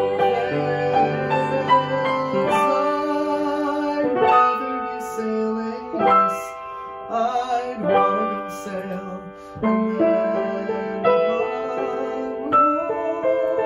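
Piano accompaniment playing an instrumental passage of a show tune, with new chords struck every second or two.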